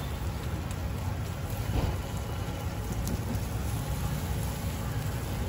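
Dosa on a hot flat griddle sizzling steadily as a masala topping is spread over it with a steel spatula, the spatula lightly scraping and tapping the surface, over a steady low rumble.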